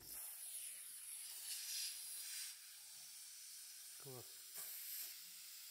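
Steam hissing from the lid of a cast-iron Afghan kazan pressure cauldron on the fire, a soft steady hiss that swells twice, about a second and a half in and again near the end.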